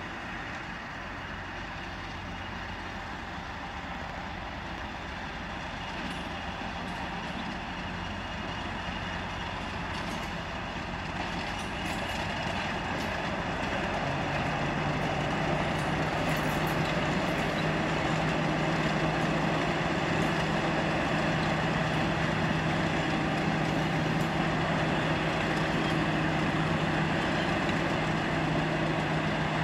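A train running steadily and getting gradually louder. A strong, steady low hum comes in about halfway.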